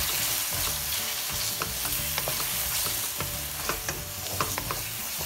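Onion-tomato masala with dry spices sizzling in oil in a pan while a wooden spatula stirs it, with a steady hiss broken by frequent short scrapes and taps of the spatula against the pan.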